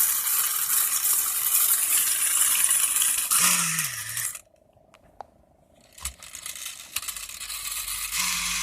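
Vintage Marx tin wind-up police motorcycle running, its clockwork and siren making a steady metallic whirring rattle. It cuts off suddenly about four and a half seconds in, and after a click near six seconds it starts whirring again.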